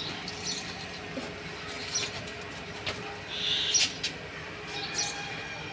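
A small bird chirping over and over in the background, short high chirps about once every second and a half, over steady street background with a few light clicks.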